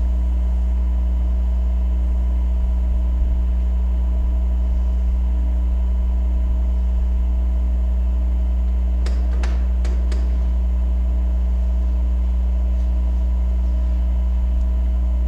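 Steady low electrical hum with a faint buzz of higher tones above it, and a few soft clicks about nine to ten seconds in.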